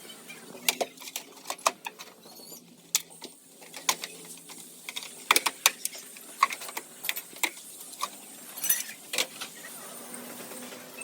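Irregular sharp metallic taps and clinks of hand tools working on a truck's sheet-metal cab, several strikes a second in clusters, some ringing briefly.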